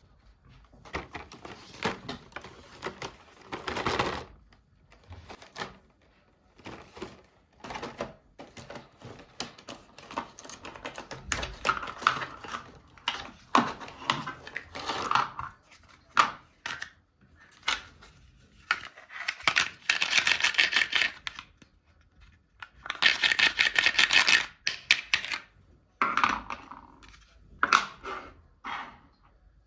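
Toy packaging being handled and opened by hand: irregular clicks and taps with rustling and tearing of plastic and cardboard, and two longer, louder stretches of crinkling in the second half.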